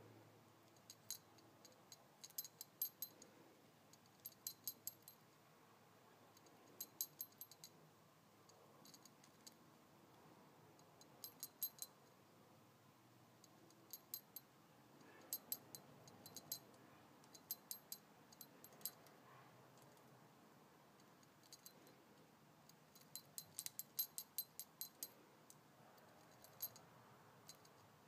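Small metal bells on a budgie's mirror toy tinkling in short bursts of quick, bright ticks as a fingertip taps them, with quiet between the bursts.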